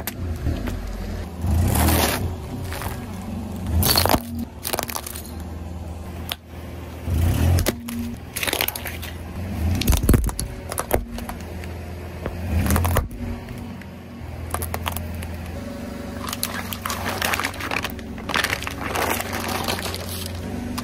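A car's tyres roll over and crush objects, giving a string of crunches and cracks over the steady low hum of the engine. The loudest crack comes about halfway through.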